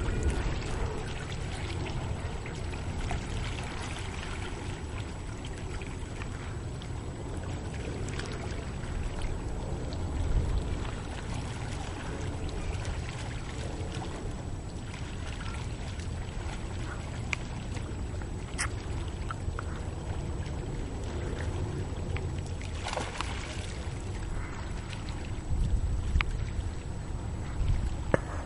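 Steady outdoor background of low wind rumble and lapping water, with a few faint clicks and a brief louder gust about two-thirds of the way in.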